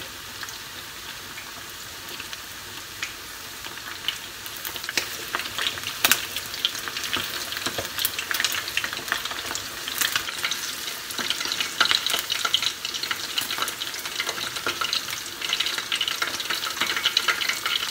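Karaage (starch-coated chicken pieces) deep-frying in vegetable oil in a wok. A steady sizzle turns into louder, denser crackling and popping from about four seconds in.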